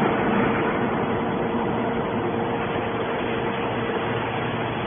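Horizontal hydraulic scrap metal baler running: a steady mechanical drone with a constant mid-pitched whine through it.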